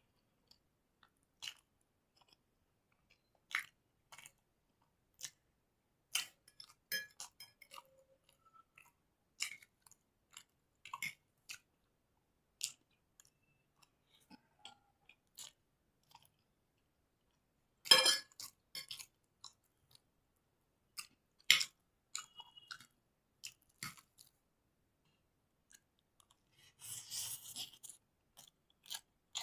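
Close-miked chewing of chowmein noodles: scattered short, wet mouth clicks, with a louder burst a little past the middle and a longer noisy stretch of chewing near the end.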